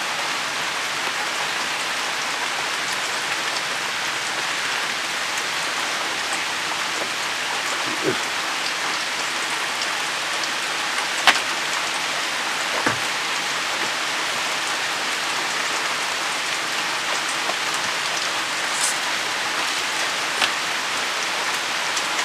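Steady rain falling, an even hiss, with a sharp tap about eleven seconds in and a couple of soft knocks.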